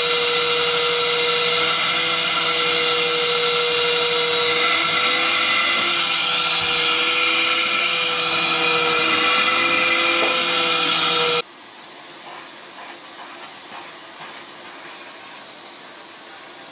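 Vacuum cleaner running with a loud, steady motor whine. It cuts off abruptly about eleven seconds in, leaving a much quieter steady hum.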